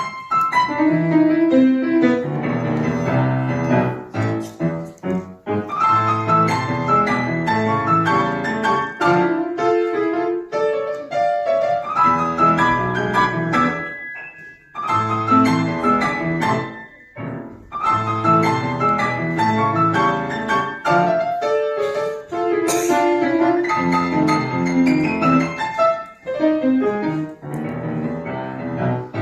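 Piano ensemble playing a pop-style piece, full chords under a melody line, with brief breaks in the sound about 14 and 17 seconds in.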